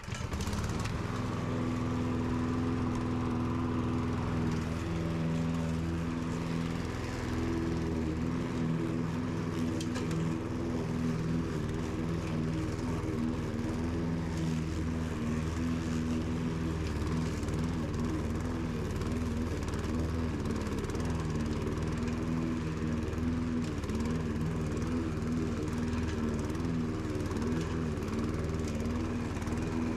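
Petrol rotary push lawn mower engine starting up right at the beginning, then running steadily at a constant speed while cutting grass.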